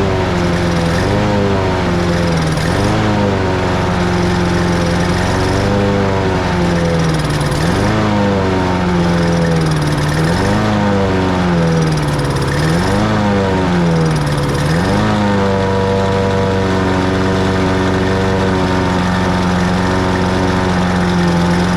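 Small lawn mower engine running, its speed rising and falling over and over, then settling to a steady speed about 15 seconds in.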